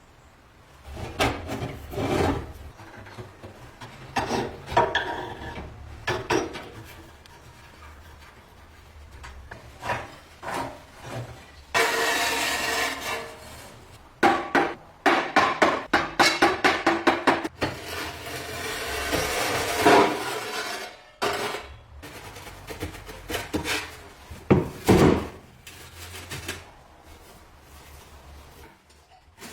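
Hand work on the parts of a vintage gas heater: scattered knocks and clatter, stretches of rubbing, and a run of quick repeated scraping strokes near the middle.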